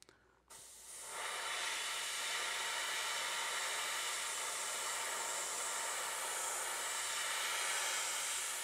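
Airbrush spraying silver touch-up paint: a steady hiss of compressed air that starts about half a second in and reaches full strength by about a second.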